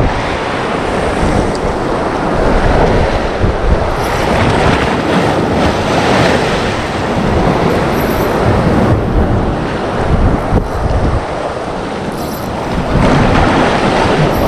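Sea waves washing on the shore, with wind buffeting the microphone; the noise swells and eases in surges.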